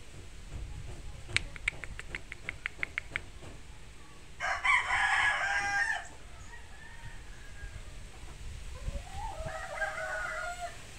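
A bulik gamecock crowing once, loudly, about halfway through, after a quick run of about a dozen sharp claps. A fainter second crow follows near the end.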